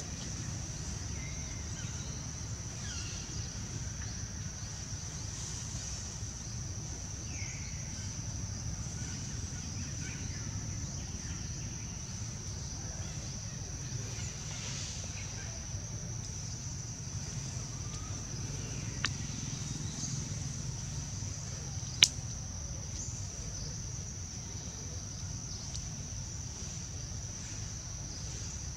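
Steady high-pitched insect drone with a few faint chirps over a low rumble. Two sharp clicks come about two-thirds and three-quarters of the way in, and the second is the loudest sound.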